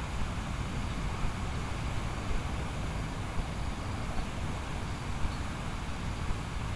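Strong wind buffeting the microphone: a steady low rumble with a few brief, sharper gusts.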